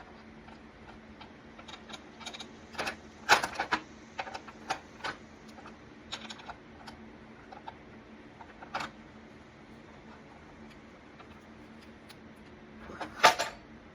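Scattered light metal clicks and taps, with a louder cluster near the end, from handling the cover plate and bolts of a DeWalt 12-inch miter saw as the plate is set back in place. A faint steady hum runs underneath.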